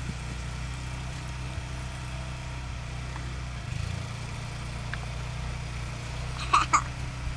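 A steady low mechanical hum, like an idling engine. Near the end, two short, sharp, louder sounds follow in quick succession.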